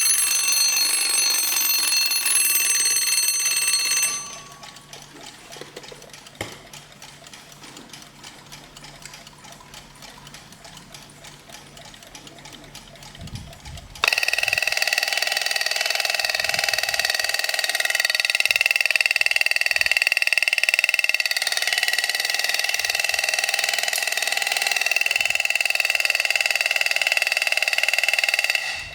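An alarm clock ringing stops about four seconds in, leaving a quieter stretch of faint regular ticking. A second alarm clock then starts ringing sharply and keeps ringing steadily until it cuts off near the end.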